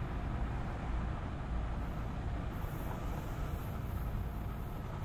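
Steady low rumble of a passing vehicle, with a faint hum above it.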